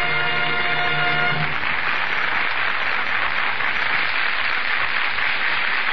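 A held music chord ends about a second and a half in, then a studio audience applauding, on a 1940 radio broadcast recording.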